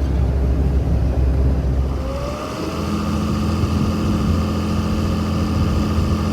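Vehicle engine running steadily. About two and a half seconds in, the pitch shifts and a steady higher whine joins the engine.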